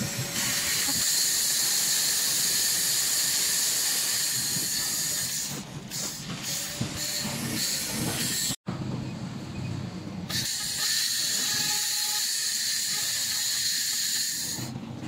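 Handheld fiber laser cleaning rust off steel: a steady, loud hiss. It eases off about five seconds in and comes back strongly around ten seconds, then fades near the end.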